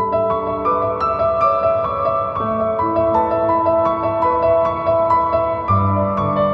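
Background music: a gentle piano melody with sustained chords.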